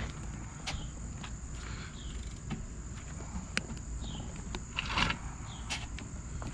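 Scattered clicks and rattles of a bicycle chain being worked onto a motorized bike's sprocket, with a louder rattle about five seconds in, over a steady high-pitched insect drone.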